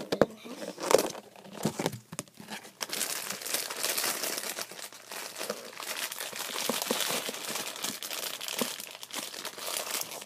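Plastic packaging crinkling as it is handled: a few scattered crackles at first, then continuous crinkling from about three seconds in.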